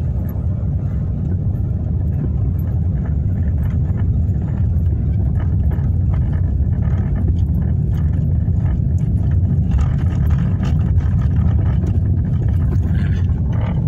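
A car driving slowly, heard from inside the cabin: a steady low rumble of engine and tyre noise, with scattered light clicks and rattles.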